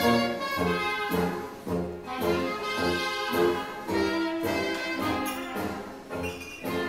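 Belly dance music, brass instruments playing a melody over a steady beat.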